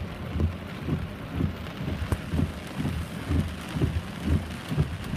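Heavy rain falling steadily, with a regular run of dull low thumps about twice a second underneath.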